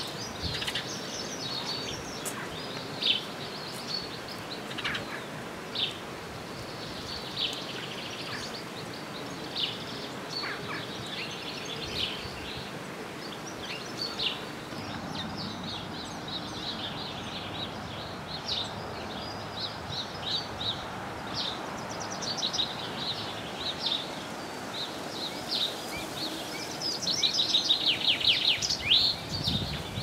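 Garden birds singing and calling: many short high chirps scattered throughout, with a fast trilling song, the loudest part, near the end, over a steady outdoor hiss.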